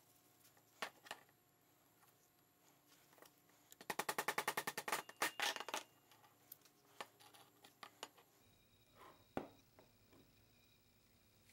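Faint handling clicks as a rubber-tyred toy wheel is fitted onto the cannon's axle: a few single clicks, then a fast rattling run of small clicks and several louder ones about halfway through, and a soft knock near the end.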